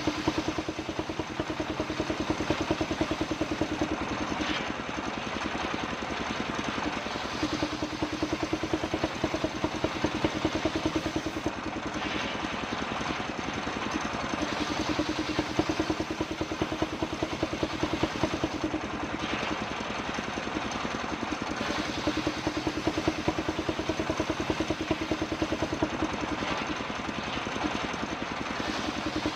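Engine of a homemade circular sawmill running steadily with a rapid, even firing beat; a mid-pitched tone swells and fades every few seconds.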